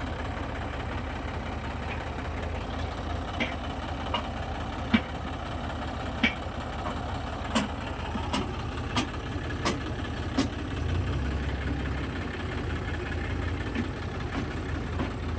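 Diesel engine running steadily at low revs, with about ten sharp knocks scattered through the middle and a slight swell in the engine's hum near the end.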